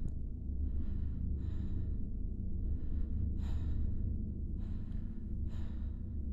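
A woman breathing audibly, three in-and-out breaths about two seconds apart, over a low steady drone.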